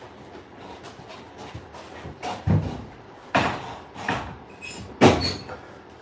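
About four sudden knocks and clatters a second or so apart, the loudest near the end, with a couple of short high squeaks among them.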